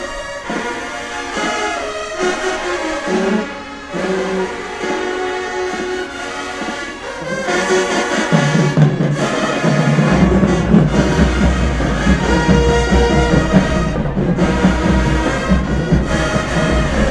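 High school marching band playing in the stands: brass horns play a tune, and about eight seconds in the music grows louder as the low brass and heavy bass come in.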